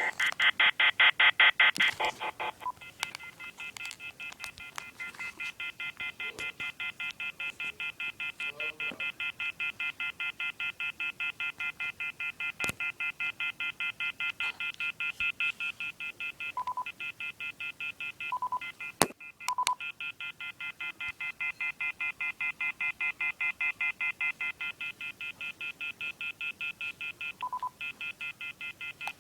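A telephone sending a long, rapid, evenly spaced run of touch-tone beeps, several a second, louder for the first two seconds and then steady. A few lower single beeps and a sharp click cut in around the middle.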